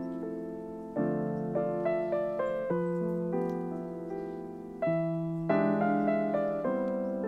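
Solo piano music: notes and chords struck every second or two, each left to ring and fade.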